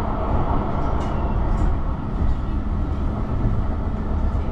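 Light-rail tram running along its track, heard from inside the passenger car: a steady low rumble with a faint hum and a few light ticks.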